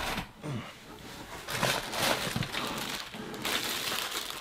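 Clear plastic bag crinkling and rustling as it is handled, an irregular crackle that starts about a second and a half in.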